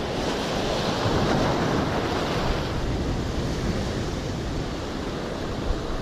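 Rough surf breaking and washing among concrete breakwater tetrapods, a steady roar of water with wind buffeting the microphone. One short click sounds near the end.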